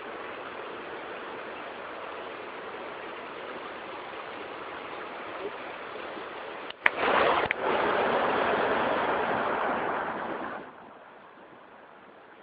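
Running water of a stream, a steady rushing hiss. A sharp click comes nearly seven seconds in; after it the water is louder for about four seconds, then drops to a fainter hiss.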